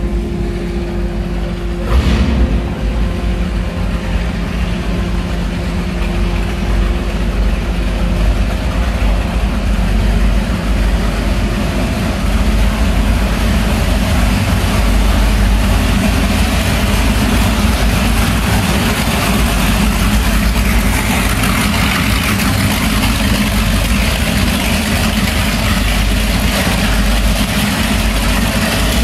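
Sport boat's engine running loudly with a deep, steady low drone while the boat pulls away, with a single knock about two seconds in.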